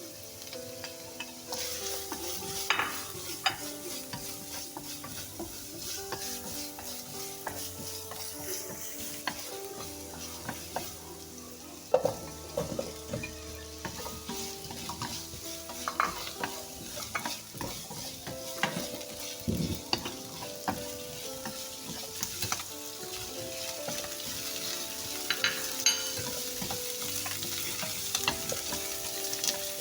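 Vegetables and tofu stir-frying in a hot pan: a steady sizzle with repeated scrapes and clacks of the spatula against the pan as the food is tossed. A soft background melody runs underneath.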